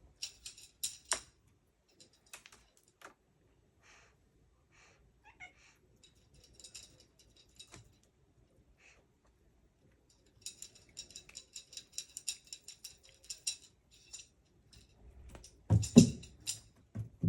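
A cat playing with a feather wand toy: scattered sharp clicks and rattles, a run of rapid clicking in the middle, and a heavy thump near the end.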